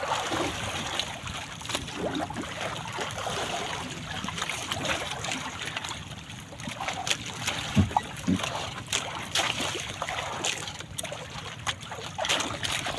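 Sea water splashing and trickling beside a small bamboo-outrigger fishing boat as a fishing net is hauled in, with many short splashes and knocks and two low thumps about eight seconds in.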